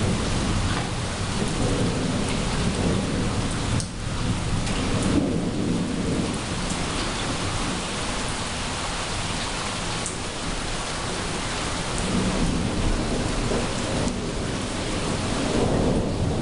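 Steady rain falling during a thunderstorm, with thunder rumbling low underneath. The rumble swells around four seconds in and again toward the end.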